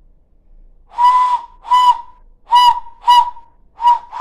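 Hand whistle blown through cupped hands: five short, breathy hoots at one steady pitch, about one a second, each with a rush of breath around the tone.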